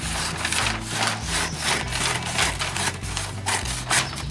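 Butcher paper being cut and handled at the roll: a run of short rasping strokes, about three a second, over a low steady hum.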